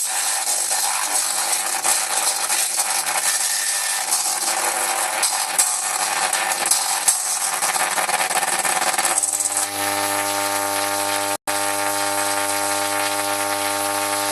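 Audio-modulated solid-state Tesla coil's spark discharge playing music as a harsh, raspy buzz. About nine seconds in it settles onto one held note, which cuts out for an instant a couple of seconds later.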